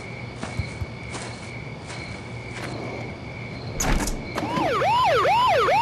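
An electronic home alarm siren, most likely the eufy Security alarm's own, goes off about four seconds in with a rising whoop that repeats about twice a second. Before it there are only a few faint soft swishes.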